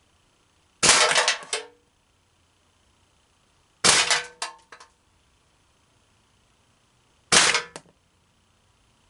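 Three shots from a gas-blowback air gun, about three seconds apart. Each is a sharp pop followed by the round striking and rattling a thin metal baking pan, and the gun is cycling properly now that the rounds and magazine are oiled.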